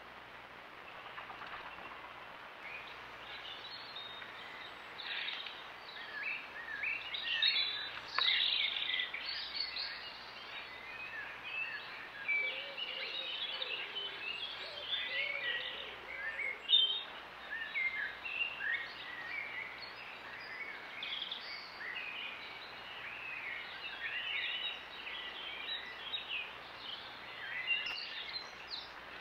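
Garden birdsong: small birds singing and chirping continuously in quick, varied phrases, over a faint steady low hum.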